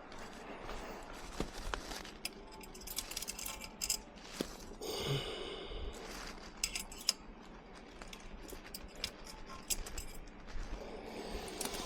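Small metal parts and hand tools clicking, clinking and briefly scraping as an exhaust baffle and its retaining screw and washer are worked back into the pipe end.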